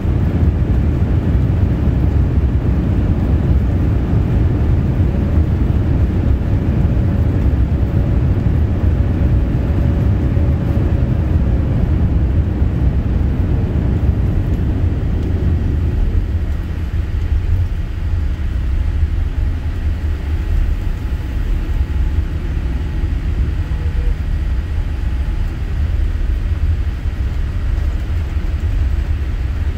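Cabin noise of a Boeing 787-8 on its landing rollout: a loud, steady low rumble from the General Electric engines and the wheels on the runway. The rumble eases about halfway through as the aircraft slows, and the engines' thrust reversers stow.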